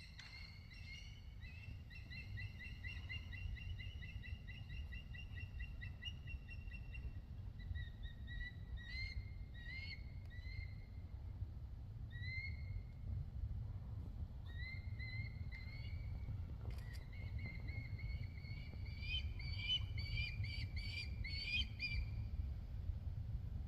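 A bird calling: a long run of quick repeated notes, then single short rising notes spaced a second or two apart, then another quick run that grows louder near the end, over a steady low rumble.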